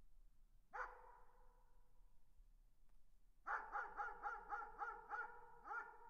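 A distant dog barking: a single bark about a second in, then a quick run of about eight barks near the end, roughly four a second, each trailing off in an echo.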